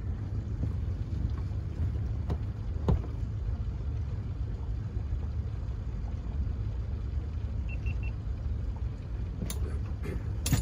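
Steady low rumble on a small boat on open water, with a few sharp knocks, one about three seconds in and others near the end, as gear is handled in the boat.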